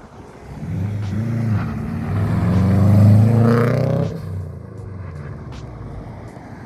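A car accelerating past, its engine revving up as it approaches, loudest about three seconds in, then fading as it drives away.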